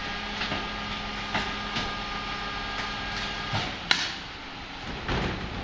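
MAN TGS garbage truck with a Faun Variopress rear-loader body running with a steady whine that stops about three and a half seconds in. Over it come irregular knocks and clatter as a large four-wheeled waste container is pulled over the street, with a sharp click near four seconds and a louder clatter near the end.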